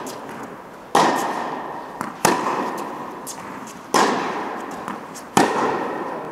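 Tennis ball being struck by rackets and bouncing on the court during a rally: four loud sharp pops about one and a half seconds apart with fainter knocks between, each ringing on in the echo of an indoor hall.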